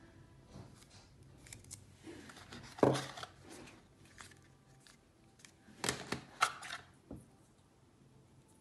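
Small plastic iPhone accessories and their plastic box insert being handled: scattered clicks, taps and light rustling, with sharper clicks about three seconds in and twice around six seconds.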